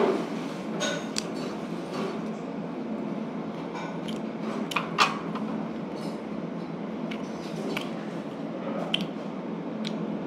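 Eating sounds: scattered sharp clinks of utensils against dishes and some chewing, over a steady fan-like background noise.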